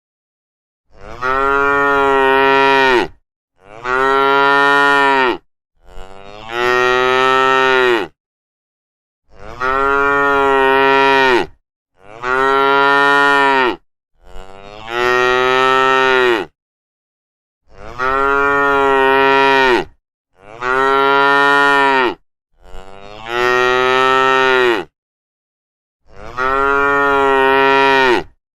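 Cows mooing: about ten long, loud moos in a row, each about two seconds and much alike, with short silences between them.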